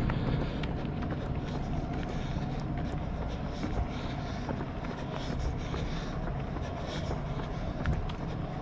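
Steady low outdoor rumble with the faint irregular tapping of footsteps on a paved footpath.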